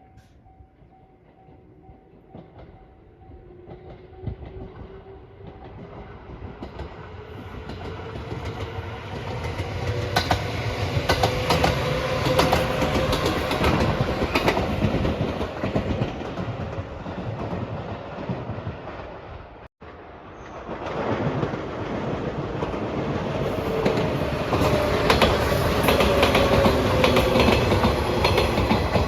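A train approaching and passing over a level crossing, its wheels clacking over rail joints, with a tone that rises slowly as it comes on. The sound cuts out for an instant about two-thirds of the way through, then a train is heard passing loudly again.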